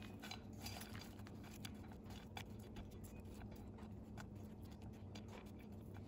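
Faint rustling and scattered light clicks of quince peels and seeds being arranged by hand in the bottom of a pot.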